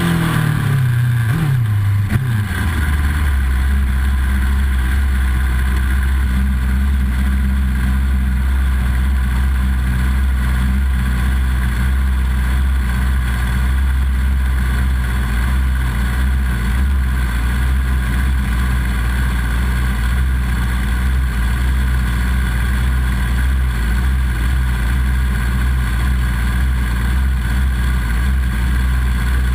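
Yamaha YZF-R6 600cc inline-four engine heard close up from the bike itself: the revs fall away over the first couple of seconds as the bike comes to a stop, then it idles steadily.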